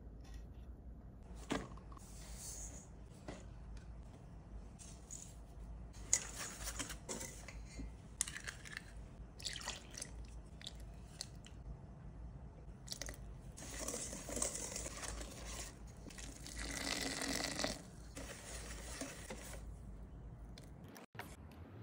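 Batter-mixing sounds at a stainless steel mixing bowl: liquid ingredients poured in and a wire whisk stirring and clicking against the metal, in several short spells with a few sharp clicks. A faint steady low hum runs underneath.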